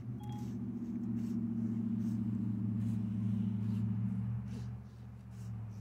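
A motor vehicle's engine running steadily with a low hum, fading away over the last second or so.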